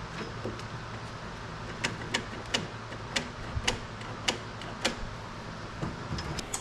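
A run of sharp, irregular clicks and taps, about eight over three seconds, from small door-handle parts being handled inside a car door, over a steady hiss.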